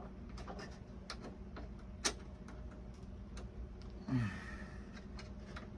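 Scattered light clicks and taps from small hardware and tools being handled while fitting a model's rudder linkage, with one sharper click about two seconds in. A brief low vocal grunt just after four seconds.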